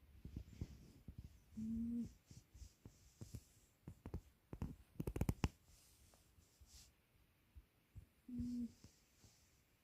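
Sleeping cat snoring: a short, steady hooting tone on its breaths, heard twice several seconds apart. Faint clicks fall between the snores, and a brief cluster of clicks about five seconds in is the loudest sound.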